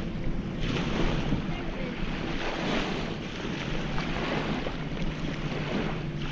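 Wind noise on the microphone over small river waves washing onto a sandy shore, the wash swelling and easing every second or so.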